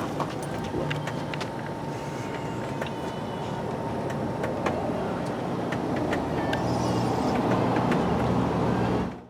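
Backhoe loader's diesel engine running steadily, growing a little louder over the last few seconds, with scattered clicks and knocks; the sound cuts off abruptly just before the end.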